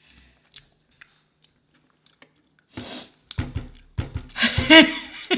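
A few faint clicks, then about three seconds in a little girl starts singing a cappella, with a few sharp knocks under her voice.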